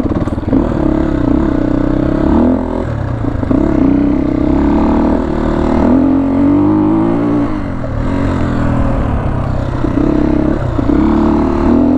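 Motorcycle engine running while riding, its pitch rising and falling as the throttle is opened and closed, with a longer drop in revs about eight seconds in.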